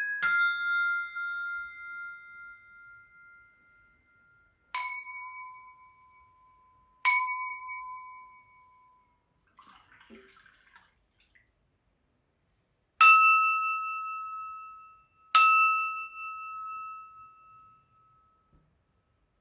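Crystal glasses struck one after another, five strikes, each ringing a clear tone that fades over a few seconds. The first is the highest, the next two are lower, and the last two sit in between.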